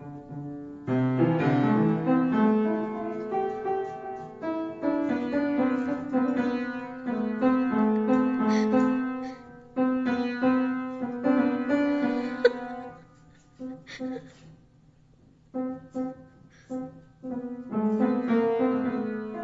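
Piano music playing a melody, thinning to a few scattered notes about two-thirds of the way through and filling out again near the end.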